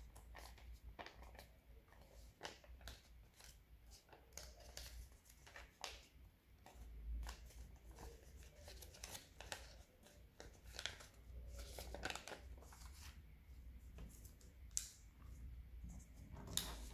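Origami paper being folded and creased by hand: faint, irregular crinkles and rustles of the paper, with a few sharper crackles, the loudest near the end.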